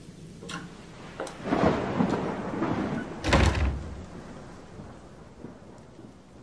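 Thunder with rain: a rumble that swells about a second and a half in, then a loud low crack about three seconds in that dies away, with a few sharp ticks before it.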